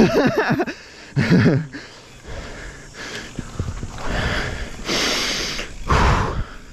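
A mountain biker breathing hard: two short grunting breaths in the first couple of seconds, then loud noisy breaths near the end.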